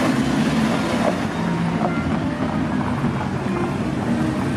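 Car engine and exhaust giving a steady, unchanging note at low speed as a car pulls out.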